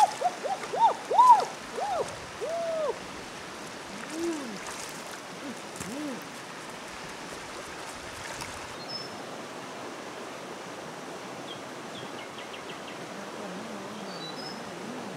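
Muddy water sloshing and plopping in a hand-dug pit for the first three seconds, with a few smaller plops after, then a steady rush of flowing river water. Faint short bird chirps come in twice near the end.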